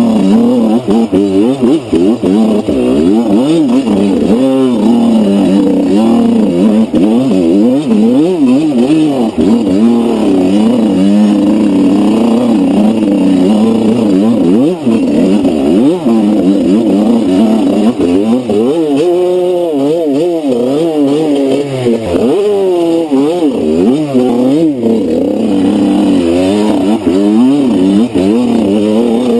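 Enduro dirt bike engine being ridden hard, its pitch rising and falling over and over with the throttle and gear changes.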